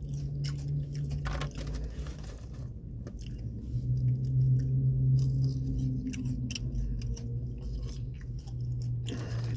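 A person chewing and biting crunchy food close to the microphone, with many short crackly crunches, over a steady low hum.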